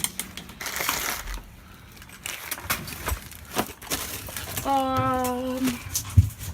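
Rummaging through stored items in a shed: scattered clattering, knocking and crinkling as things are moved and handled. About five seconds in there is a held vocal tone lasting about a second.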